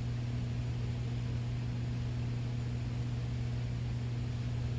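Steady low hum, with a weaker higher tone above it, over an even background hiss.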